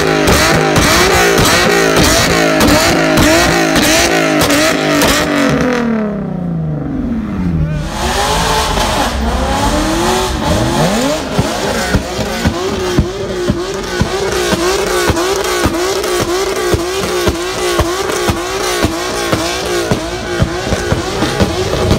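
Car engines revving hard and repeatedly during street burnouts, the pitch rising and falling, with some tyre squeal. About a third of the way in the revs drop away, then climb again.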